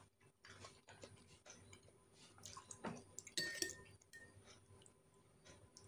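Cutlery clicking and clinking quietly against a plate, with one sharper clink about three and a half seconds in that rings briefly.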